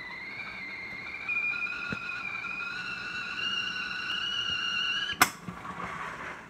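Stovetop whistling kettle whistling at the boil: a steady shrill tone that creeps slightly up in pitch. It is cut off suddenly with a click about five seconds in as the kettle is taken off the burner, and a short hiss of steam follows.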